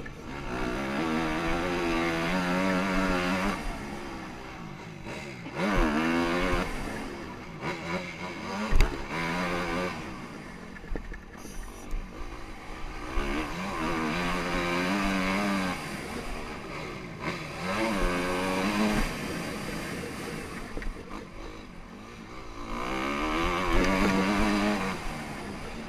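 Honda CRF250R's four-stroke single-cylinder motocross engine, ridden hard: it revs up and backs off several times, its pitch rising and falling with each throttle cycle. A sharp knock about nine seconds in.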